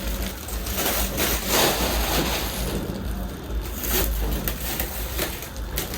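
Handling noises from unboxing a new air fryer: rustling and rubbing of packaging with scattered light knocks.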